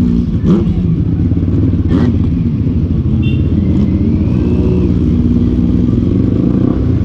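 Kawasaki Z800's inline-four engine running steadily while the bike is ridden, its pitch shifting slightly with the throttle. Two brief knocks come about half a second and two seconds in.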